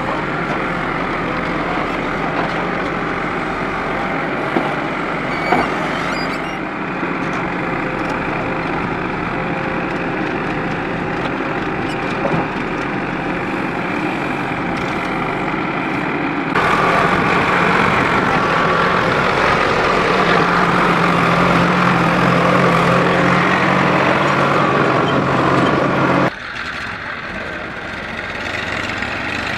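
The diesel engine of a JCB 3DX backhoe loader runs steadily under load while it digs and loads soil, with a few brief knocks in the first half. The engine sound steps up louder about halfway through, then drops suddenly near the end to a quieter diesel engine, the Massey Ferguson tractor pulling the loaded trolley.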